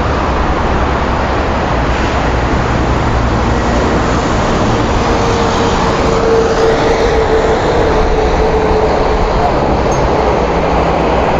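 Loud, steady wind rumble on a phone microphone held high on a steel billboard frame, with a faint steady hum held for a few seconds midway.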